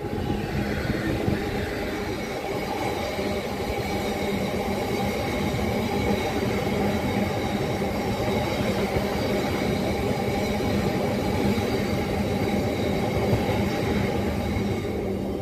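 Freight train of bulk cement tank wagons, hauled by a Class 66 diesel, rolling past close by: a steady rumble of steel wheels on the rails with several steady high ringing tones over it.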